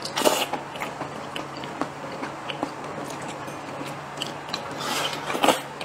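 Close, wet mouth sounds of a person chewing a mouthful of soft fried eggplant and rice: small smacks and clicks throughout, with two louder noisy bursts, one just after the start and one near the end, picked up by a clip-on microphone.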